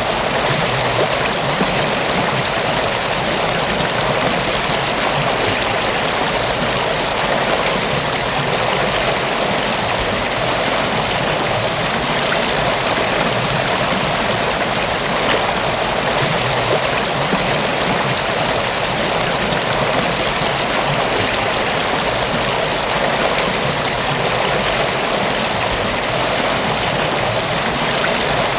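Mountain waterfall: falling and rushing water making a steady, dense rush with no change.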